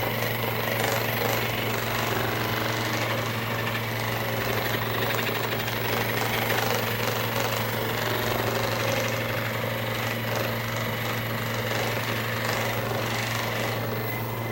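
A motorised percussion device running steadily, with a constant hum and a rapid hammering buzz, cutting off suddenly at the end.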